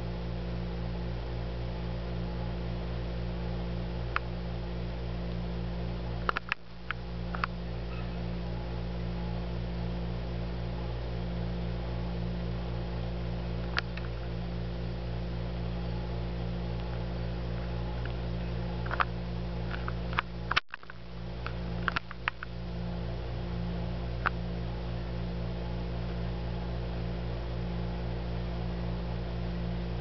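A steady low electrical hum with a faint hiss, broken by a few scattered light clicks and taps. The sound cuts out for an instant about two-thirds through.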